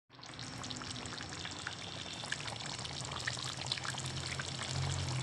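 Chicken afritada stew simmering in a pan of tomato sauce: a steady bubbling sizzle with many small scattered pops, over a faint low hum.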